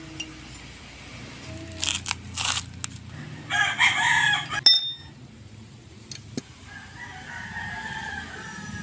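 Loud animal call lasting about a second, beginning about three and a half seconds in, with short noisy sounds before it and a fainter falling call near the end.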